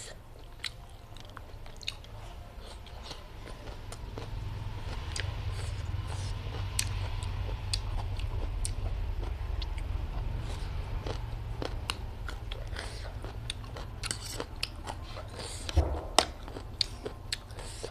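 Close-miked chewing and biting of food, with many sharp mouth clicks and smacks. A steady low rumble runs underneath, louder in the middle.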